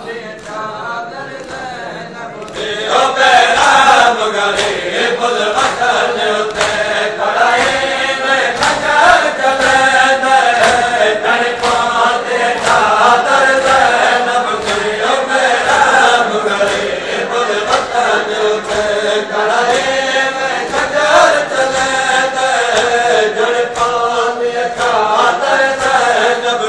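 Shia mourners chanting a noha together, a melodic lament sung in unison, over rhythmic hand strikes on the chest (matam) that keep the beat. It swells much louder about three seconds in.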